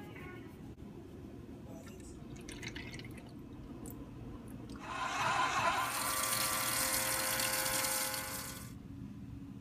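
Lilumia makeup-brush washing machine running its wash cycle: water swishing and spraying inside the chamber with a steady motor whine, loud for about four seconds from around five seconds in, then cutting off. Before it, only faint water sounds over a low hum.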